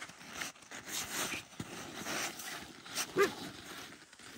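A dog barks once, a single short bark about three seconds in, over scuffing and crunching in snow.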